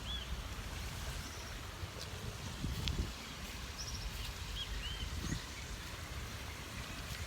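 Outdoor garden ambience: a bird gives short, paired, arching chirps a few times, with quick runs of high chirps now and then, over a steady noisy background with a low rumble.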